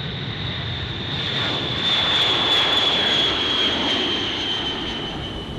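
B-52 Stratofortress jet engines passing by: a high turbine whine over a roar that swells to its loudest midway, with the whine falling slightly in pitch, then eases off.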